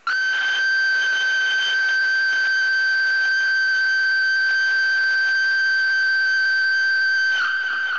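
Steam locomotive whistle blowing one long, steady blast that starts abruptly, then sags in pitch and dies away near the end.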